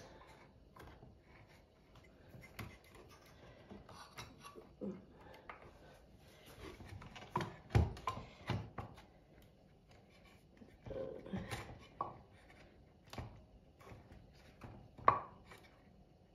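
Hands fitting a drive belt onto the lower pulleys of an Ideal Automatic sewing machine: scattered knocks, clicks and rubbing of the belt and metal and plastic parts. The sharpest knocks come about eight and fifteen seconds in.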